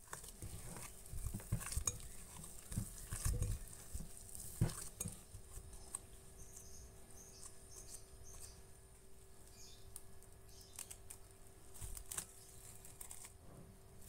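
Bread dough being kneaded by hand in a glass bowl: irregular soft thumps, squelches and knocks against the glass, busiest in the first half with the loudest knock about four and a half seconds in. Then quieter handling, and a crackly rustle of plastic cling film being stretched over the bowl near the end.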